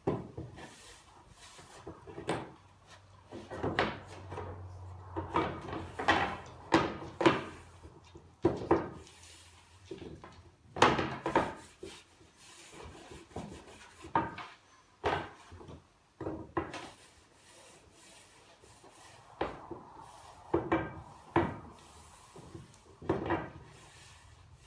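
Wooden boards knocking and clattering on a workbench as they are handled and laid down, at irregular intervals, with a rag rubbing oil finish into the wood between the knocks.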